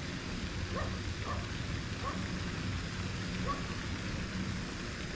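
Steady wind noise on the microphone, with a faint low hum underneath and a few faint short chirps.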